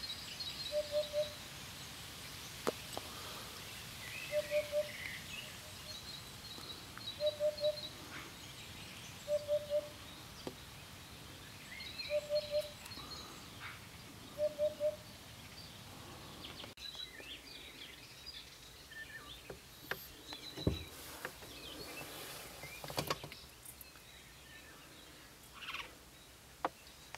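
Eurasian hoopoe singing its low, hollow "oop-oop-oop": short groups of two or three notes repeated every two to three seconds, about seven times, while small birds chirp faintly higher up. The song stops about halfway through, leaving scattered bird calls and a single thump a few seconds later.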